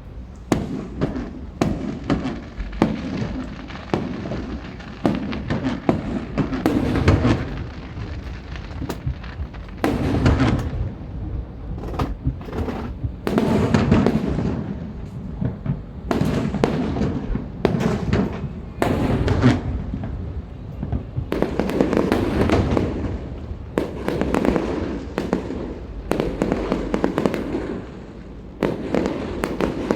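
Fireworks display: aerial shells bursting in rapid volleys, sharp bangs with deep rumbling booms and crackle, coming in waves every few seconds.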